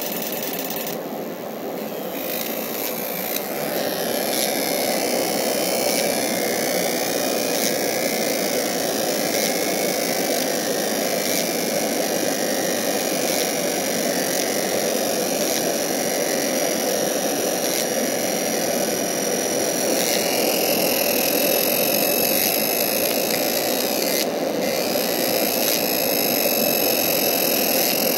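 Steady rushing air of a fume extractor drawing through a flexible aluminium duct while a fiber laser etches a black metal card, with faint steady high whine tones over the rush. The rush steps up slightly about four seconds in.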